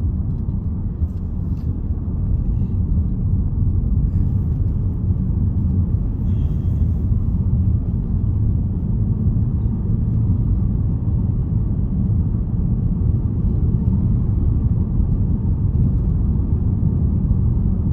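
Steady engine and tyre rumble of a Range Rover driving along a road, heard from inside the cabin.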